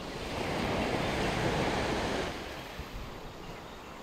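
Wind buffeting the microphone over a steady rushing hiss. It eases off a little about two seconds in.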